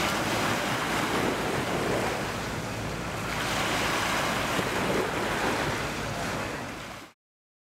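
Sea surf washing in, a steady rushing that eases and swells again, with wind on the microphone. It cuts off abruptly near the end.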